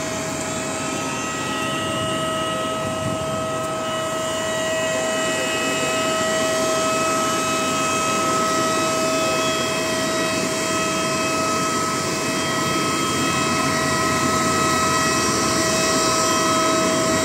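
Steady whine of a jet aircraft's turbine running, several high tones held over a rushing noise, growing a little louder toward the end.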